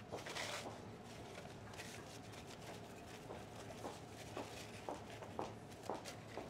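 Quiet room with a steady low hum and a brief rustle near the start. From about four seconds in come light, regular footsteps on a hard floor, about two a second.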